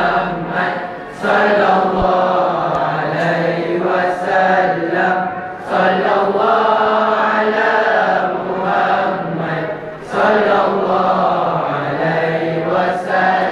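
A group of boys singing a nasyid together in unison, in long held phrases with short breaks about every four to five seconds.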